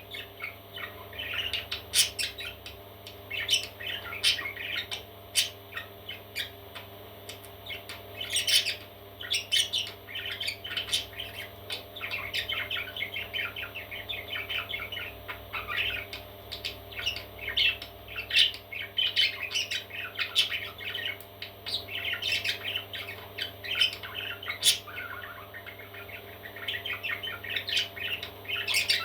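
Parrot chicks chirping and squawking, a dense, unbroken stream of short calls with sharper squawks scattered through it. A steady low hum runs underneath.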